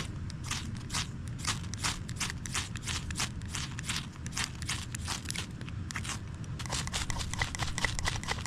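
Repeated scraping strokes of a ferro rod being struck to throw sparks onto tinder, about three strokes a second, quicker and lighter near the end. Wind rumbles on the microphone throughout.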